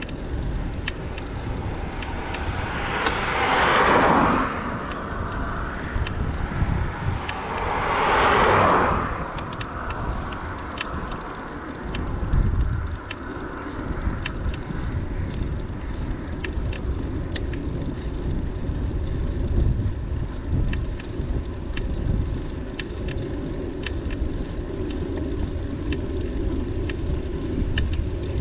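Wind rumbling on the microphone of a moving bicycle on a road. Two vehicles pass close by, one a few seconds in and another about five seconds later, each swelling and fading over a second or two.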